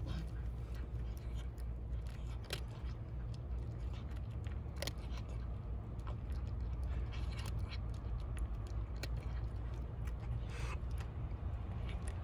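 A cat crunching dry kibble from a bowl, with irregular crisp crunches and clicks every second or so, over a steady low rumble.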